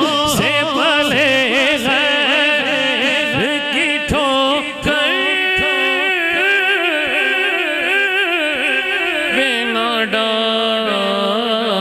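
Male naat reciter singing without words through a microphone: quick wavering ornamented notes at first, then long held notes from about halfway that sink lower near the end.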